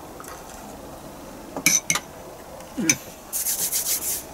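Two sharp clicks of a metal fork set down on a plate, then palms rubbed briskly together for about a second near the end.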